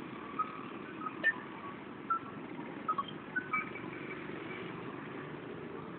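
Steady hum of road traffic, with a scattering of short, high chirps in the first few seconds.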